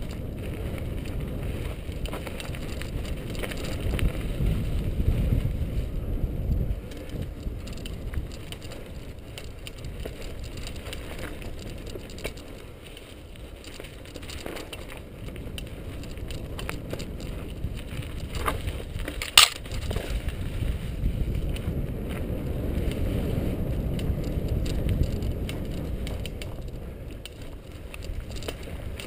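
Mountain bike riding down a dirt singletrack: a low rumble of knobby tyres on dry dirt that swells and eases with the terrain, with scattered rattles and clicks from the bike and one sharp clack about two-thirds of the way through.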